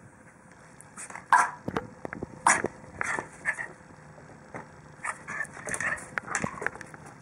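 Small dog giving a series of short, sharp yaps, starting about a second in and going on to near the end.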